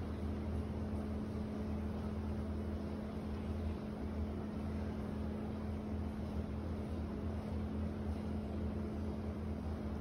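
Steady ambient hum of a Taiwanese apartment alley: a constant low machine drone with a steady mid-low tone over an even hiss, unchanging throughout.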